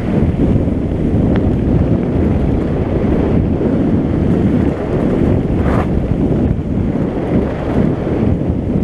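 Steady wind buffeting the microphone of a camera carried on a mountain bike riding fast downhill, a dense low rushing noise. About six seconds in there is a brief brighter rustle.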